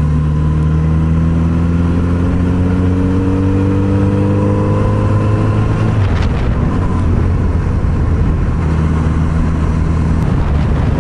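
Kawasaki Z900RS inline-four engine pulling in gear, its note rising slowly as the bike gathers speed. About six seconds in the note breaks off, then settles back to a steady hum with wind rush over the microphone.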